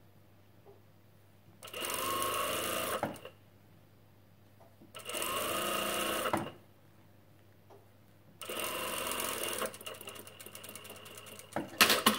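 Industrial sewing machine stitching a neck band onto knit fabric in three short runs of about a second and a half each, stopping between them while the fabric is repositioned. A few sharp clicks come just before the end.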